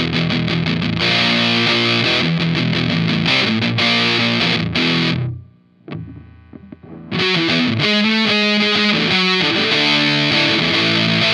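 Electric guitar played through a heavy distortion pedal, riffing with thick sustained chords. About halfway through the playing stops for a second or so, then resumes with choppy palm-muted chugs.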